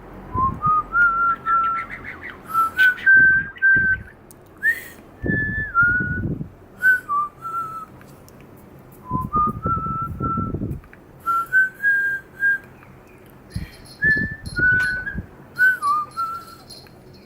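A person whistling short phrases of clear notes that step up and down in pitch, with a pet budgerigar chirping and chattering in reply between and over the phrases.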